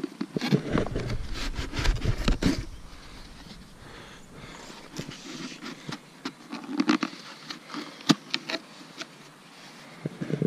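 Cardboard animal carrier box being handled, with scattered scrapes and short clicks as its top flaps are worked open. A low rumble runs through the first couple of seconds.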